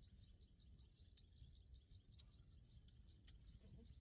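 Faint insects chirping in a steady high-pitched pulse, about five a second, over a low outdoor rumble, with two short sharp clicks about two and three seconds in.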